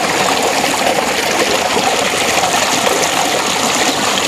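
Water gushing steadily from a tubewell's outlet pipe into a concrete tank, a constant loud rushing splash.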